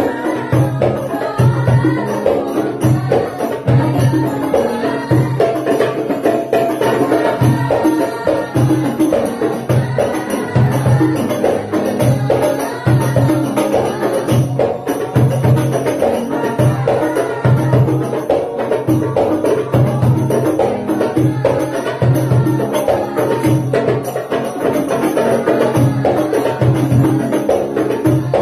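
Sholawat sung by a group of voices over hadrah frame drums (rebana) playing a steady, repeating beat.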